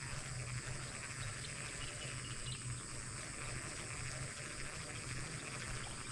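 Baitcasting reel being cranked steadily during a lure retrieve, a faint even whirring under a steady outdoor hiss.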